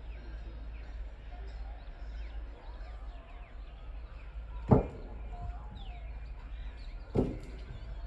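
Birds chirping over a steady low rumble, broken by two heavy thumps about two and a half seconds apart.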